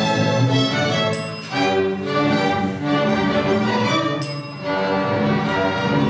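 Student string orchestra playing: violins, cellos and double basses bowing sustained chords in phrases, with brief dips in loudness between phrases.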